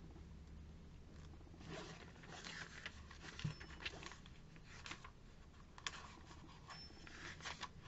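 Faint rustling and crinkling of glossy catalogue pages being flipped by hand, in short scattered bursts starting about two seconds in.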